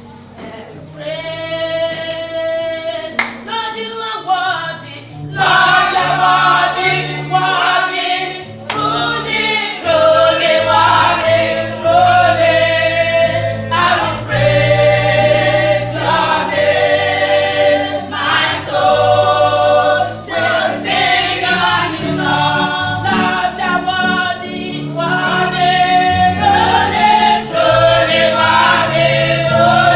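A choir singing a gospel song. The singing starts about a second in and grows louder from about five seconds in.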